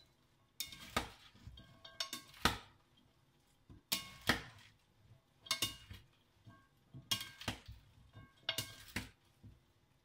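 Plastic salad servers knocking against a glass bowl while a salad is tossed: pairs of sharp clicks, about one pair every second and a half, six pairs in all.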